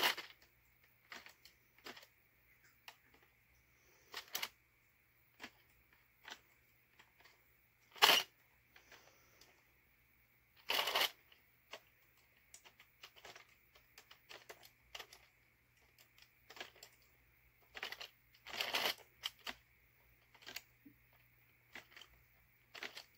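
Irregular light clicks and rustles of a yarn needle and yarn being worked through the plastic needles of an Addi Express circular knitting machine while casting off, with a few longer, louder rustling bursts along the way.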